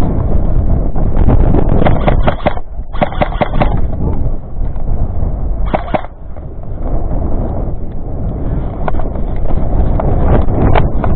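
Loud wind buffeting the microphone, with a few short runs of sharp clicks, a cluster about two to four seconds in, another near the middle and more near the end.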